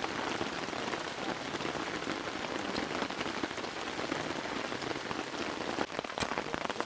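Steady rain falling on a flysheet stretched overhead: an even hiss made of many separate drop taps.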